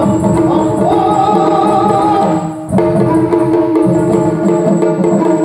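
Yakshagana ensemble music: a bhagavata singing over a steady drone, with maddale and chande drums beating a fast rhythm. The music drops briefly about two and a half seconds in, then resumes.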